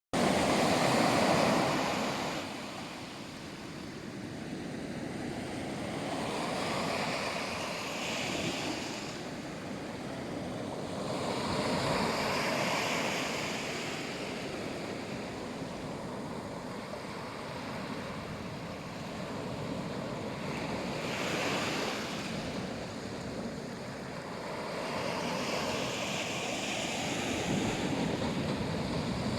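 Black Sea surf: waves washing onto the shore in surges every few seconds, a steady rush of water between them, with some wind on the microphone.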